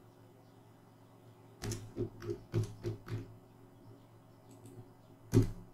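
Typing on a computer keyboard: a quick run of about six keystrokes, then a single louder click near the end.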